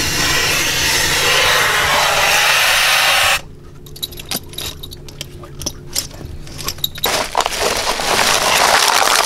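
Loud steady hiss of air escaping from a scuba diver's full-face mask as it is pulled off, cutting off suddenly about three seconds in. Scattered clicks and knocks of the dive gear being handled follow, and near the end a plastic shopping bag rustles.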